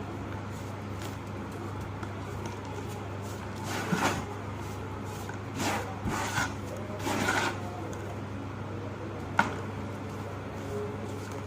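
Crumbly chunks of pressed ash and sand being crushed by hand: several short, separate crunches in the middle, and one sharp crack near the end, over a steady low hum.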